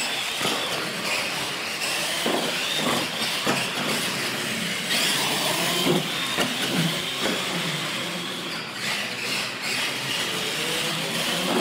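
Radio-controlled monster trucks racing: a steady high whine of motors and drivetrains with tyre noise on a concrete floor. Several short thumps come as the trucks hit and land off the ramps.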